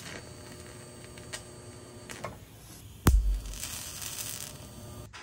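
Welding arc humming steadily on steel frame tubing, with a few light clicks. About three seconds in there is one loud thump, followed by a short hiss.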